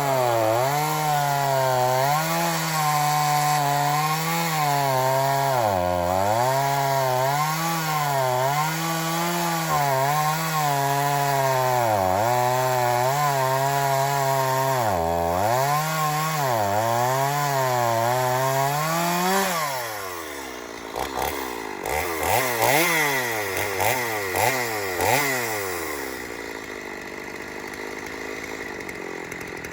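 Two-stroke gas chainsaw cutting a log, its engine pitch repeatedly dipping and recovering under load. About twenty seconds in it comes out of the cut and is revved in a few quick blips, then drops back to idle.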